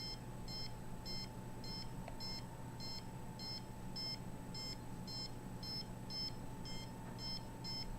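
Handheld RF meter beeping, short high beeps about twice a second at a slightly uneven pace, its audio alert sounding as it measures microwave radiation.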